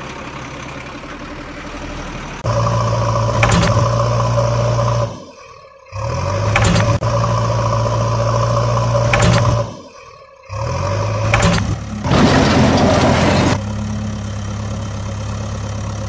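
Construction-machine engine sound running at a steady pitch in several stretches, cut by two short breaks, with a burst of noise a little after twelve seconds before it settles into a quieter steady hum.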